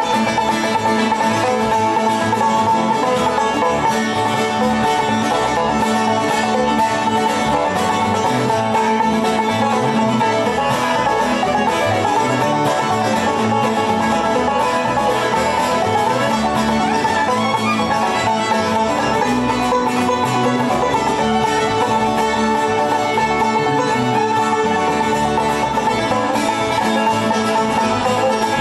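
Live acoustic bluegrass band playing an instrumental break on guitars and fiddle, with no vocals.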